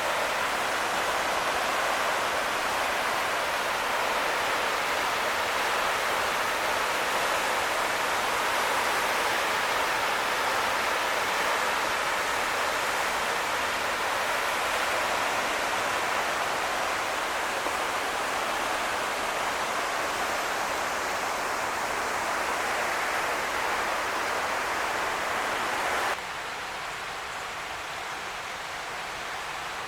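Steady rush of water where the Smith River flows out below the dam. Near the end it drops suddenly to a quieter rush.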